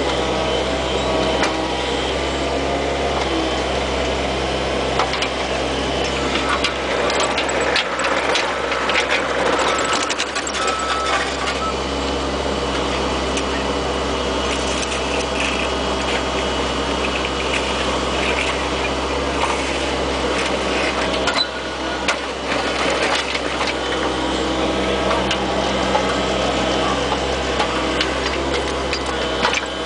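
Bobcat 430 ZHS mini excavator's diesel engine running steadily, with scattered metallic clanks and rattles, thickest a third of the way in and again around two thirds of the way through.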